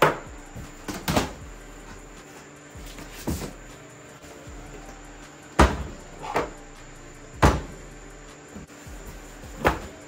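A series of short, sharp knocks, about seven of them at uneven intervals, over a steady low hum.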